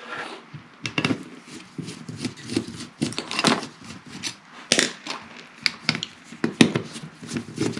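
Screwdriver working the screws out of a small USB fan's plastic frame: irregular clicks, taps and knocks of metal tool on plastic and metal grille, with a small plastic part set down on the table.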